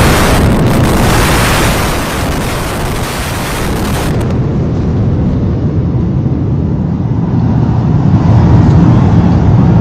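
Loud rumble from the controlled-demolition collapse of twin high-rise towers and the dust cloud that billows out after it. A hissing edge drops away about four seconds in, leaving a low rumble that swells again near the end.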